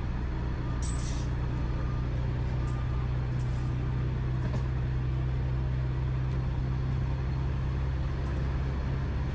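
Locomotive running along the track: a steady low engine drone, with a couple of brief high-pitched sounds about one and three-and-a-half seconds in.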